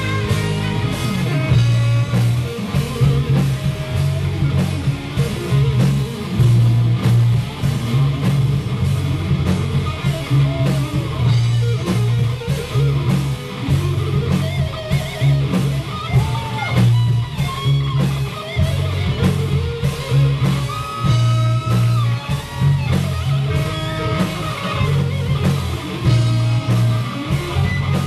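Live ska-rock band playing loud: electric guitars, bass guitar and drum kit over a steady pulsing bass line.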